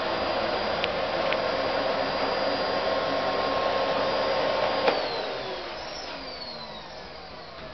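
Household vacuum cleaner running steadily with a constant whine. About five seconds in it is switched off with a click, and its motor winds down in a falling whine.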